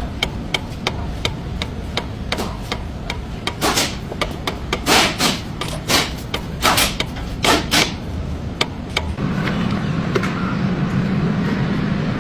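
A run of sharp taps and knocks, with several louder, ringing strikes in the middle, typical of work on a car's steering parts. About nine seconds in, a steady low hum starts.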